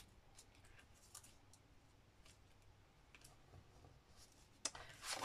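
Near silence with faint scattered clicks and ticks of paper-craft materials being handled, and one sharper click near the end.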